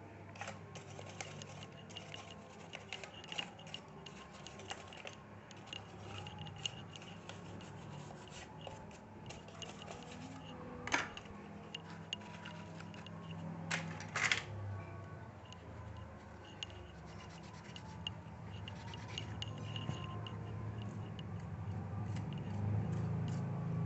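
Tissue rubbing old thermal paste off a laptop processor: a run of light scratchy rubs and small clicks, with two sharper clicks around the middle. A low rumble grows underneath near the end.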